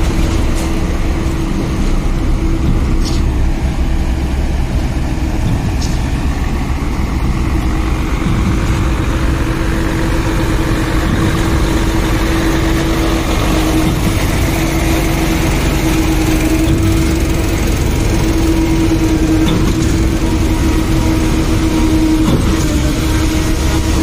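Heavy diesel engines of a truck-mounted concrete boom pump and Mercedes-Benz concrete mixer trucks running steadily close by while concrete is pumped, with a constant low rumble and a steady droning hum.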